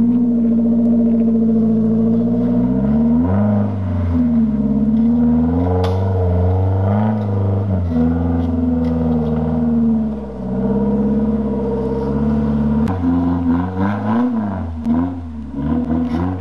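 Four-wheel-drive engine pulling uphill off-road, holding steady revs at first and then revving up and down again and again from about three seconds in, with a few sharp knocks.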